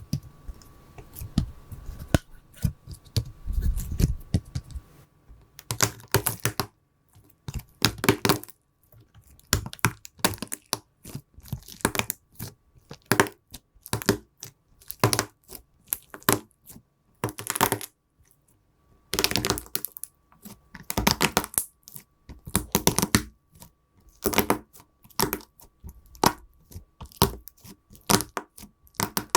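Slime being squished, giving clusters of crisp crackling clicks and pops with short pauses between, over a faint steady high hum.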